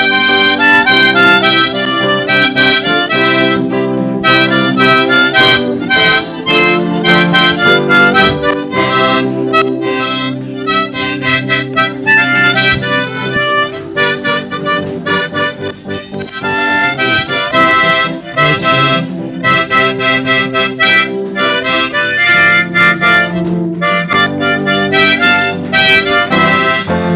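Instrumental church music with held chords and a moving melody line, without singing; it dips briefly about halfway through.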